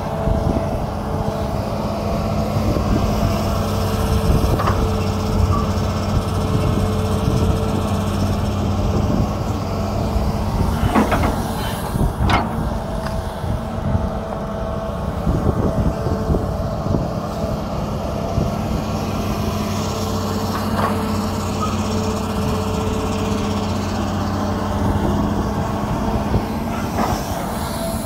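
Hitachi hydraulic excavator's diesel engine running steadily while the machine digs and lifts wet mud. A few sharp knocks stand out, around 5, 11, 12 and 21 seconds in, and again near the end.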